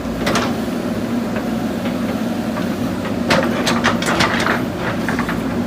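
JCB backhoe loader's diesel engine running steadily, with a quick run of sharp knocks and clanks a little past halfway, such as the bucket or linkage striking stone and metal while digging.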